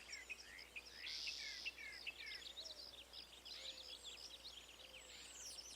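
Faint birdsong ambience: many short, quick chirps and little falling whistles from several small birds, thinning out near the end.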